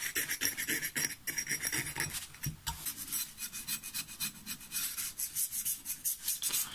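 Scalpel blade scraping across a rusty metal bracket coated in motor oil, in quick, irregular short strokes that work the rust off the surface.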